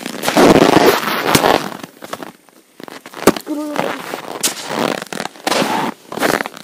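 Footsteps of felt boots crunching in hard, dry frozen snow: an uneven run of loud crunches with a few sharp knocks, and one short squeak about three and a half seconds in.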